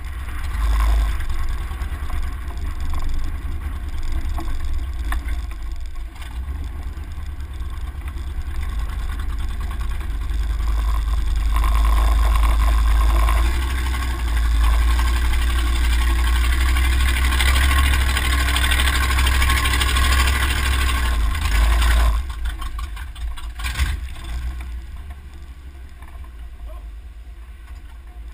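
Off-road 4x4 driving a dirt trail, its engine and tyres heard from a camera mounted outside low on the door, with a heavy low rumble. The sound grows louder about twelve seconds in and drops off sharply a little past twenty-two seconds.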